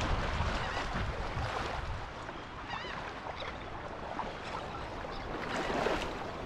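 Sea water sloshing and lapping around people wading in the shallows, with wind buffeting the microphone.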